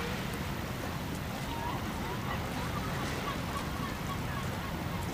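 Steady wind rumble on the microphone, with many short bird calls rising and falling in the background.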